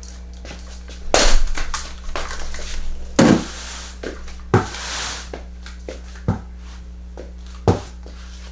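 Handling noises: crinkling and scraping of packaging with a few sharp knocks and thumps, one burst after another.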